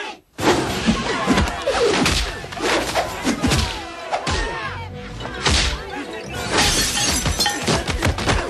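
Martial-arts film fight soundtrack: action music under a rapid run of punch and kick impact effects, with fighters' shouts. The sound cuts out for a moment at the very start.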